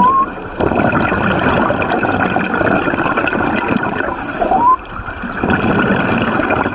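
Underwater bubbling and gurgling of scuba divers' exhaled bubbles from their regulators, heard through an underwater camera, surging and easing, with two brief rising squeaks.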